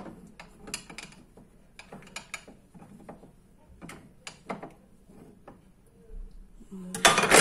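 Scattered light clicks and knocks of objects being handled, then a louder clattering rustle about seven seconds in.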